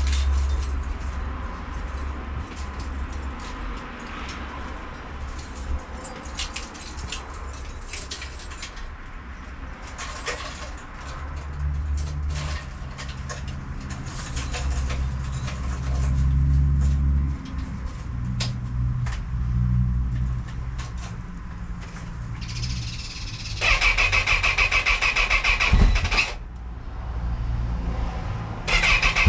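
Low rumble and scattered handling clicks, then the Honda CB1000R's electric starter cranking the cold engine in a loud buzzing burst of about two and a half seconds near the end, and again just before the end: a hard cold start.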